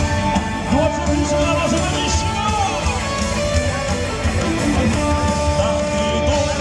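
Amplified dance music from an outdoor stage's sound system: a steady beat with guitar and long held notes.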